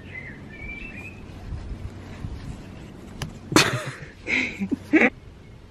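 A pug puppy sniffing and snuffling close to the microphone: a few short, breathy sniffs in the second half.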